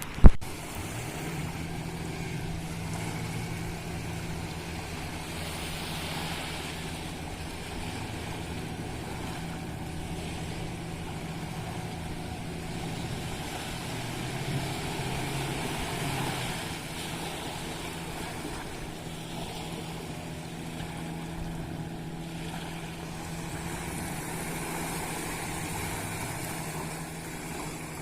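Fishing boat engines running steadily, a continuous low drone.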